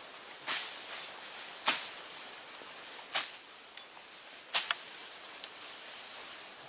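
Footsteps through tall grass: four short swishes of stalks brushing past legs, about one every second and a half, over a faint steady hiss.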